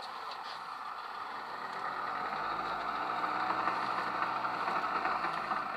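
An engine running at idle with a steady hum that grows louder about two seconds in and eases off near the end.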